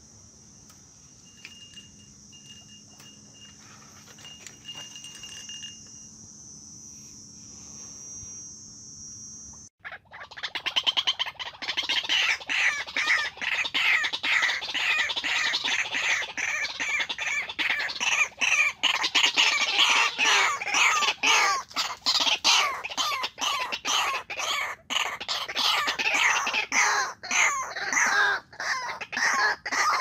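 White-breasted waterhen calling: a loud, continuous run of rapid repeated notes that starts suddenly about ten seconds in. Before it there is only a steady high insect hiss with a few faint short chirps.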